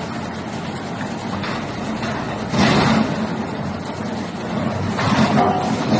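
Wood waste shredder running with a steady heavy drone, surging louder for about half a second some two and a half seconds in and again near the end.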